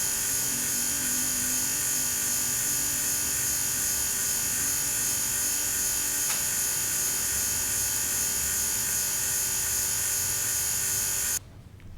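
Steady, high-pitched whine of small high-speed motors, holding one pitch, then cut off abruptly near the end.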